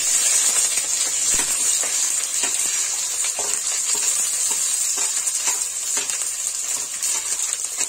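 Sliced onions sizzling loudly in smoking-hot oil in a kadhai, a steady hiss of frying. Short clicks and scrapes of a steel spoon pushing the onions off a steel plate into the pan run over it.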